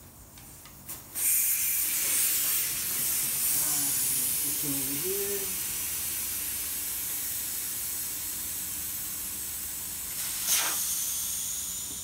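Air hissing out of a 225/35ZR20 low-profile tire through its valve stem as the tire is deflated. The hiss starts suddenly about a second in and slowly fades. There is a sharp click near the end.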